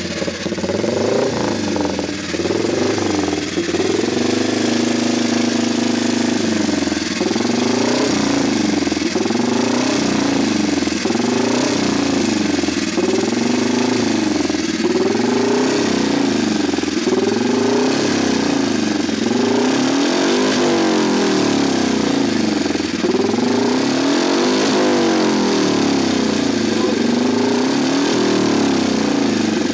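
Manx Norton single-cylinder racing engine running and being blipped on the throttle, the revs rising and falling again and again, every second or two.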